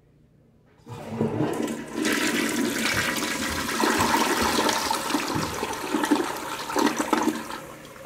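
Eljer Titan toilet flushing: about a second in, water suddenly rushes into the bowl and swirls down the drain, a dense rush that eases off near the end.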